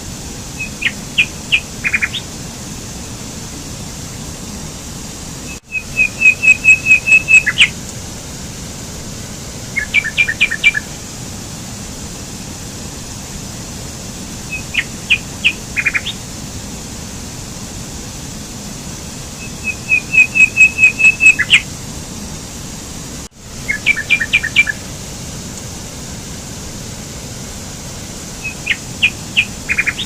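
Rocky mountain stream running in a steady rush, with a songbird singing short runs of quick high chirps about every four to five seconds, louder than the water. The sound drops out for an instant twice.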